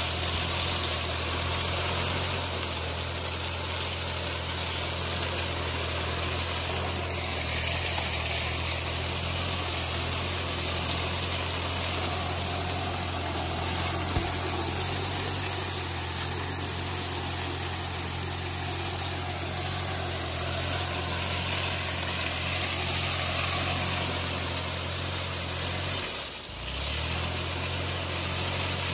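Kubota B2420 compact tractor's diesel engine running steadily under load, driving a rotary mulcher that shreds dry sugarcane leaves with a steady hiss of chopped debris. Near the end the engine note dips briefly and picks up again.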